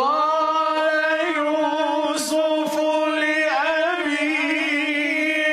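Male Quranic recitation (tilawa) chanted in a long, sustained melodic line, with ornamented wavering turns about halfway through.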